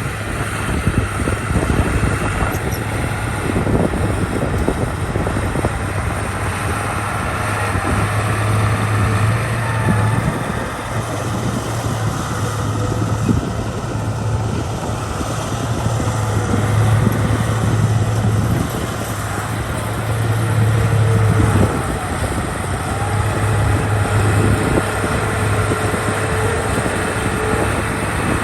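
Heavy construction machine's diesel engine running continuously, its load rising and easing, with scattered short knocks and clanks.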